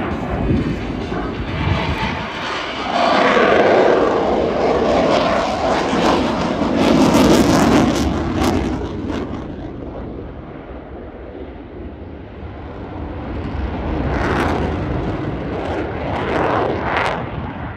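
Eurofighter Typhoon's twin EJ200 turbofans in afterburner, loud jet noise that sweeps down in pitch as the fighter passes. It fades, then swells again near the end.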